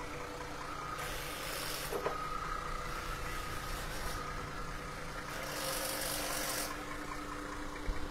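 Forklift engine running steadily with a constant hum while the forklift carries a car on its forks. Two stretches of hiss rise over it, one about a second in and another around five to six and a half seconds in.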